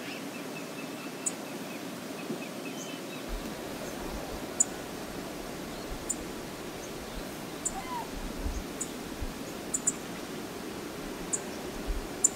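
Steady rush of flowing river water, with scattered short, sharp high ticks and a low rumble that comes in about three seconds in.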